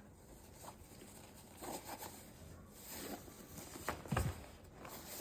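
Soft rustling and light knocks of a CPAP machine's carrying bag being turned over and handled while feeling for its zipper, with a duller thump about four seconds in.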